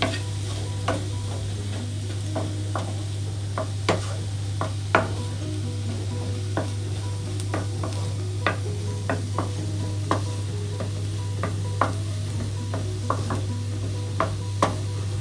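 Wooden spatula stirring chopped onions in a black frying pan, making irregular clicks and scrapes against the pan over a faint sizzle of the onions sautéing in a little coconut oil. A steady low hum runs underneath.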